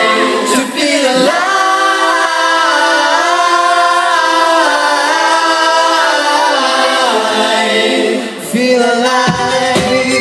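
Live pop song played through a concert hall's sound system: long sung vocal lines over a held chord, with no bass or drums, until the bass comes back in about nine seconds in.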